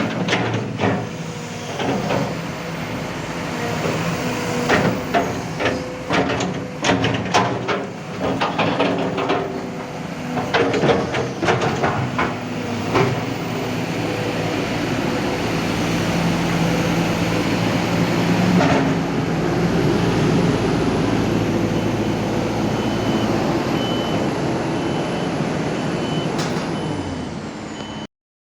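Kobelco SK200 hydraulic excavator running, its diesel engine going steadily while a quick series of clanks and knocks comes through the first half. The engine then runs on more evenly and a little louder, and in the last few seconds a high, evenly spaced beeping of an alarm joins it before the sound cuts off.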